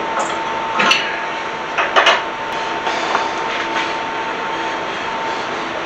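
A few short knocks and clinks of metal parts and tools being handled on a workbench, the loudest a quick double knock about two seconds in, over a steady background hum.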